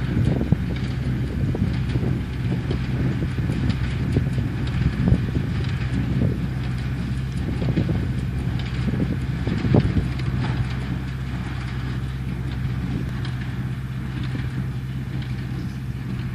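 Deutz Agroplus 70 tractor engine running steadily, driving a New Holland 274 small square baler that knocks and clatters irregularly as it bales hay. The sound grows slightly fainter in the second half.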